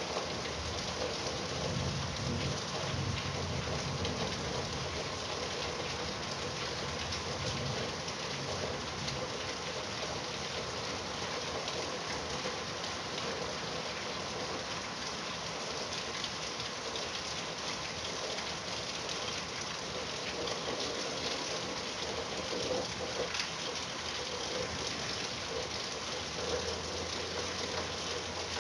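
Steady rain falling and pattering on surfaces, with individual drops audible, and a faint low rumble in the first few seconds and again near the end.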